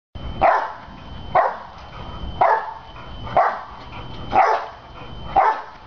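A dog barking six times at an even pace of about one bark a second, in time with its bouncing on a trampoline.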